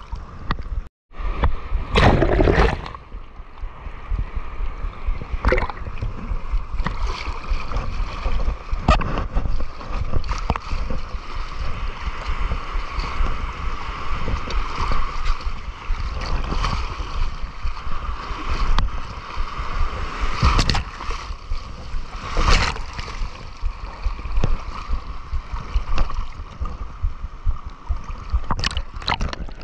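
Shallow seawater sloshing and splashing against a waterproof action camera held at the surface, sounding muffled. Louder splashes come about two seconds in and twice more past twenty seconds, and the sound drops out briefly about a second in.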